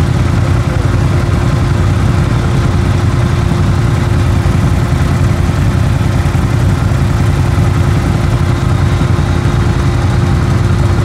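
ATV engine running at a steady speed in deep mud, a loud, even, low drone with one constant tone held throughout.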